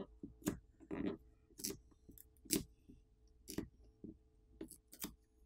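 Light, sharp clicks and ticks of small repair tools working on a phone's internals, about ten at uneven intervals, as the graphite heat-spreading film is peeled away.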